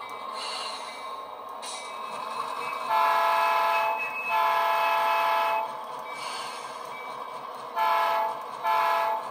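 Sound decoder in an HO-scale Athearn Genesis GP38-2 model diesel locomotive: the prime-mover sound runs steadily as the locomotive moves along the track, and the multi-note horn sounds four times, two long blasts then two short ones near the end.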